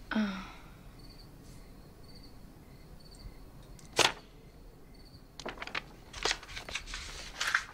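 Crickets chirping faintly and repeatedly, with a sharp crack about four seconds in and a run of short rustles and crunches near the end.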